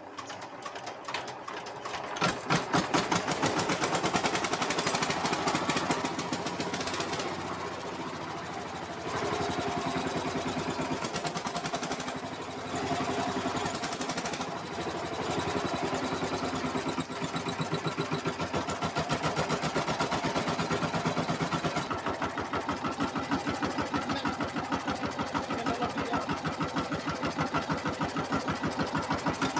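Single-cylinder diesel engine of a VST Shakti power tiller running after a rebuild with new liner, piston and rings, firing in a fast, even beat that steadies about two seconds in; its level shifts up and down a few times.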